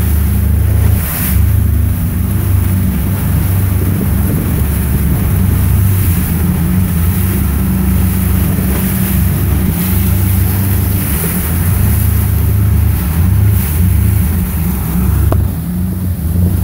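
2016 Mercury 115 four-stroke outboard motor running under way with a misfire, the problem that an engine reset later clears. Wind noise on the microphone.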